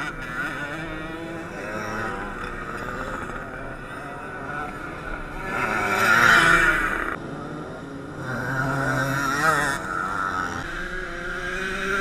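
Racing mofas' small two-stroke moped engines revving hard as they pass close by. The engine notes waver up and down. The loudest pass comes as two mopeds go by about six seconds in, with another swell near nine seconds.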